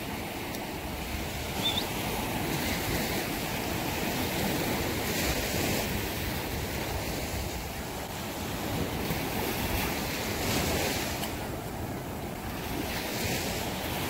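Surf washing up the beach, a steady rushing that swells every few seconds, with wind rumbling on the microphone.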